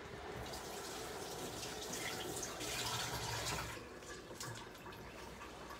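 Water running from a kitchen tap while a bunch of parsley is rinsed under it, quieter from a little under four seconds in.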